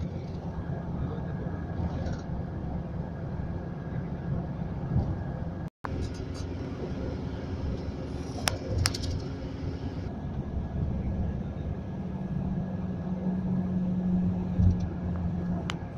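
Steady low road and engine rumble inside a moving bus, with a couple of light clicks about nine seconds in. The sound cuts out for a moment about six seconds in.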